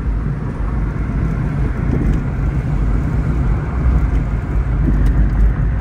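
Car interior noise while driving: a steady low rumble of engine and tyres on the road, with wind coming in through an open window.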